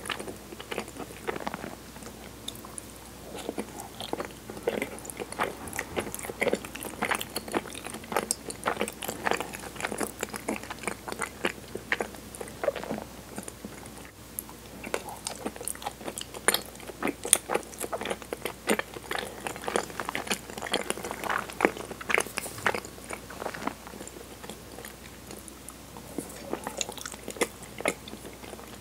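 Close-miked chewing of soft, sticky mochi: irregular wet mouth clicks, smacks and squelches. Near the end comes a bite into a chocolate-coated ice cream bar.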